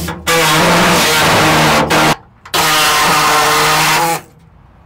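Pneumatic reciprocating air saw cutting through the rust-thinned sheet-steel floor pan of a 1972 Chevelle, a steady pitched drone. It runs in two spells of about a second and a half with a short pause between, and stops just after four seconds.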